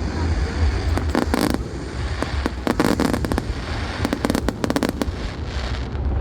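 Aerial fireworks display going off: clusters of rapid crackling pops, about a second, two and three quarters, and four seconds in, over a continuous low rumble of bursts.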